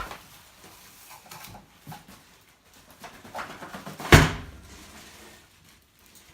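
Unpacking a boxed gumball machine: scattered handling knocks and rustles of packaging, with one loud sharp knock about four seconds in.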